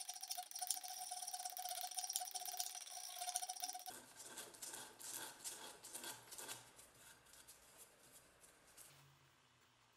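A hand file rasping on the ash-wood handle of a butcher cleaver. At first a round file moves in quick strokes with a steady tone running through the rasping. After a cut about four seconds in, a run of short scraping strokes grows fainter and stops near the end.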